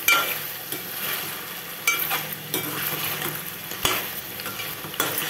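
Steel spoon stirring chicken in an aluminium pot, scraping and clinking against the metal a few times over a steady frying sizzle. The pot is uncovered while the chicken's own water cooks off.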